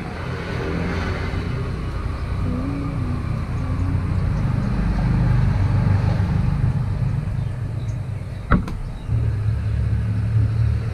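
A steady low engine rumble throughout, growing stronger after about nine seconds. A single sharp knock about eight and a half seconds in as a glass ketchup bottle is set down on the wooden table.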